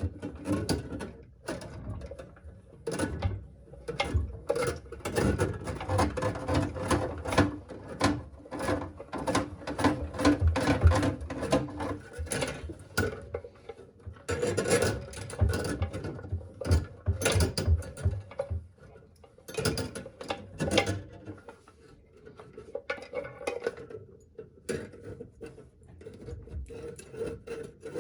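Metal drain snake being worked down a clogged drain pipe: the cable scrapes and rubs inside the pipe and the snake clicks and rattles in an irregular run of short strokes, easing off for a few seconds about three-quarters of the way through.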